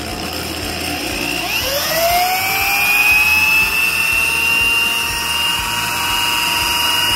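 DeWalt corded drill spinning the crankshaft and finned flywheel of a lawnmower engine that has had its piston removed. Its whine rises in pitch about a second and a half in as it speeds up, then holds steady.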